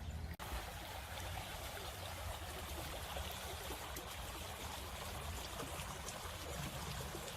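Small stream running steadily with a continuous trickling rush of water, after a brief dropout near the start.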